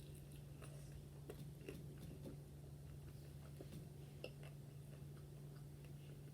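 Faint chewing of crispy fried chicken: soft scattered clicks and small crunches over a steady low hum.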